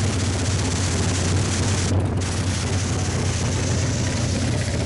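Nitrous purge on a Ford drag car hissing steadily as a white jet of nitrous vents beside the hood scoop, over the engine idling. The hiss breaks off briefly about two seconds in.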